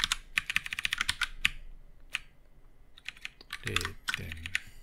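Typing on a computer keyboard: a quick run of key clicks, a lull of about a second with a single press, then another run of typing.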